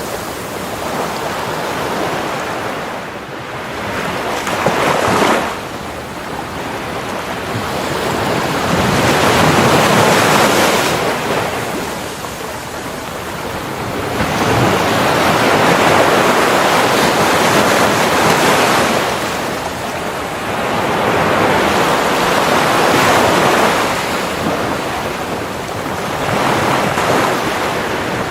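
Surf breaking and washing up on a beach, the waves swelling and falling back in surges every five to seven seconds.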